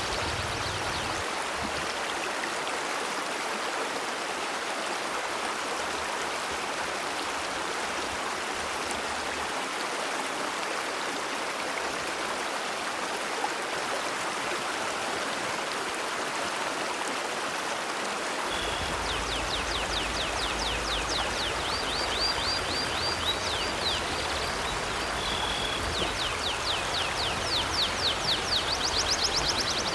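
Steady rushing of a flowing river. From about two-thirds of the way in, a bird calls in rapid, high, repeated falling chirps over the water, and a low rumble joins at the same time.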